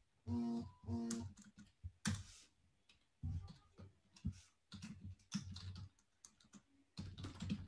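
Typing on a computer keyboard: irregular key clicks with short pauses. Near the start, a voice gives two short hummed notes.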